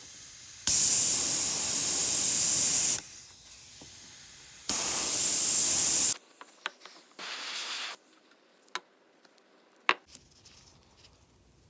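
Airbrush spraying paint in two long hissing bursts, the first a little over two seconds and the second about a second and a half, then a shorter, fainter spray. A few light clicks follow near the end.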